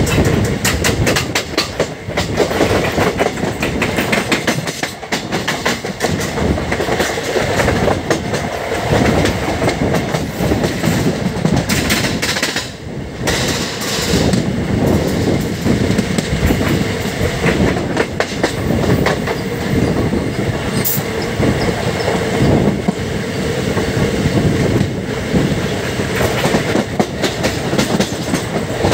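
Indian Railways express passenger train running on the track, heard from on board: a steady, loud clatter and rattle of the coach wheels over the rails.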